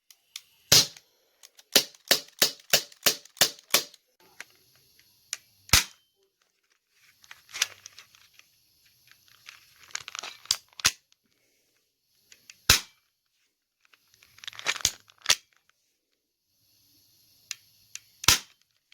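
Airsoft pistol firing 6mm BBs: sharp pops. There is a quick string of about nine shots in two seconds near the start, then single shots a few seconds apart, with handling rustles in between.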